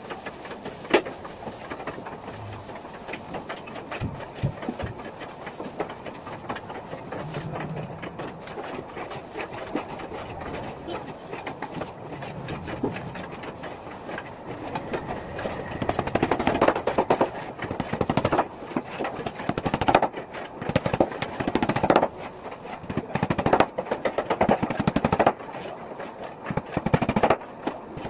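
A hammer knocking on particle board, tapping wooden strips into place. From about halfway the blows come rapid and irregular, several a second, over a fast, fainter clatter.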